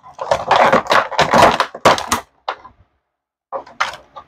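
Clear plastic packaging tray crackling and clicking as small toy parts are worked out of it: a dense run of crackles for about two seconds, then a few short crackles near the end.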